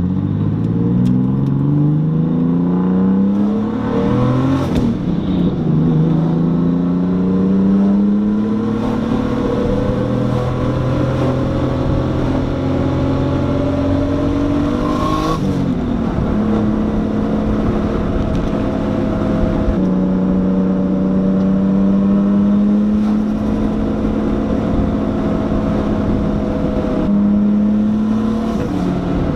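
Nissan RB20 straight-six engine heard from inside the car, pulling hard with its pitch climbing, with upshifts about four and fifteen seconds in. It then holds a steady cruise for the rest of the time.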